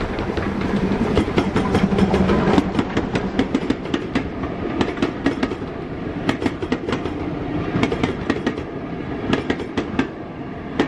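A train running on jointed track, its wheels clicking sharply and irregularly over the rail joints above a steady rumble, with a steady tone in the first couple of seconds.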